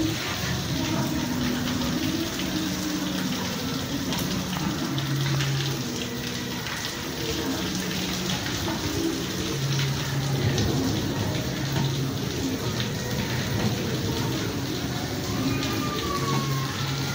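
Steady rain falling and splashing on a courtyard, with short low humming tones coming and going beneath it.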